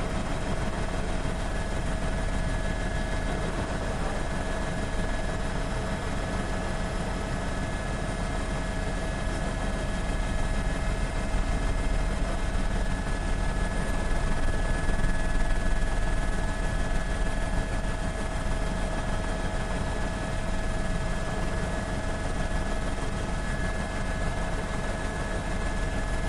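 Helicopter engine and rotor droning steadily, with a constant whine over it; a little louder about halfway through.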